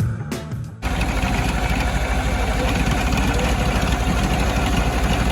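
Music cuts off less than a second in. An engine then runs steadily with an even, fast low pulse.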